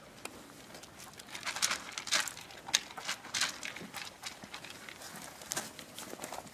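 Stray dogs and puppies feeding on dry food on the ground: irregular bursts of crunching and scuffling, with a sharp click a little under three seconds in.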